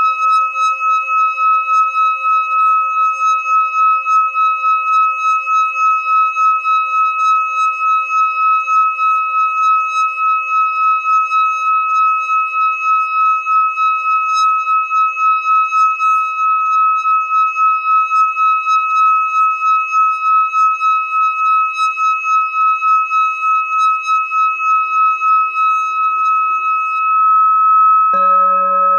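Hand-held metal singing bowl sung by running a mallet around its rim: a steady ringing tone that pulses about three times a second. Near the end a bowl on the table is struck, adding a deeper ringing tone.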